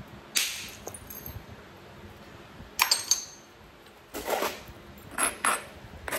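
Chert being flintknapped. About half a second in there is a sharp strike with a brief high ring as the billet hits the edge, then two sharp stone clinks near the middle. Near the end an abrading stone scrapes along the chert's edge in short strokes.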